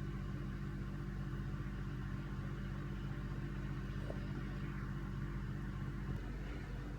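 Steady low mechanical hum with a faint hiss behind it.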